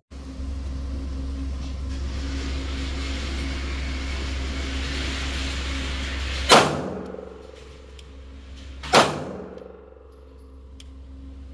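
Two gunshots about two and a half seconds apart, each a sharp crack with a short ringing tail, over a steady low hum and hiss that fades after the first shot.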